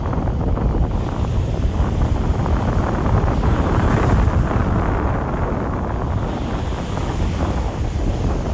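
Wind blowing across the microphone: a loud, steady rumbling rush with no voices.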